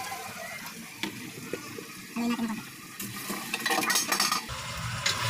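Metal ladle stirring in a stainless steel cooking pot of chicken and chayote, with a cluster of clinks and scrapes against the pot about three seconds in. A steady low rumble comes in near the end.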